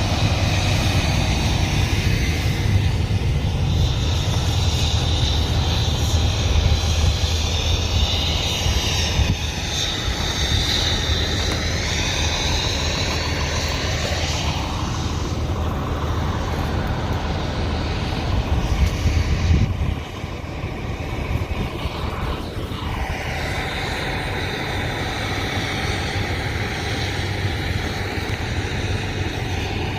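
Steady low engine drone with vehicle noise; a couple of sounds slide in pitch as they pass about halfway through, and the drone eases slightly after that.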